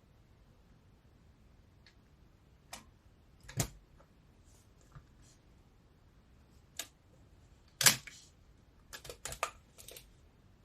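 Scattered mechanical clicks and snaps of a Pentax K1000 35mm film camera handled while film is loaded. The loudest is a sharp snap about eight seconds in, followed by a quick run of four or five clicks.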